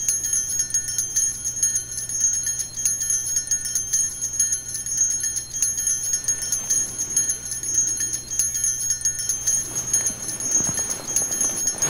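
Sanctus bells, a cluster of small altar bells, shaken in a continuous jingling ring, marking the elevation of the consecrated host.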